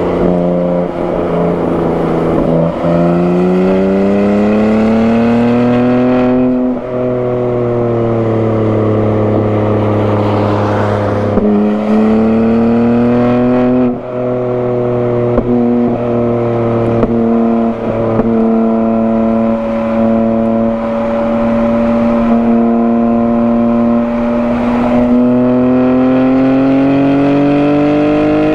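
BMW G80 M3's twin-turbo 3.0-litre inline-six, fitted with a non-resonated single midpipe, being driven hard on track. The engine note climbs under acceleration, breaks off at gear changes about seven and fourteen seconds in, holds fairly steady through a long stretch, then rises again near the end.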